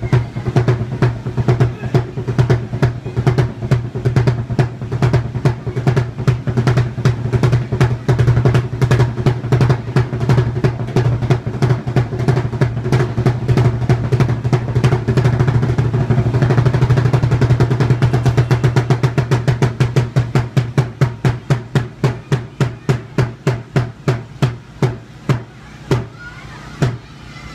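Large taiko drum beaten with sticks in a fast, continuous run of strikes that builds to a dense roll past the middle, then slows into spaced single strikes near the end.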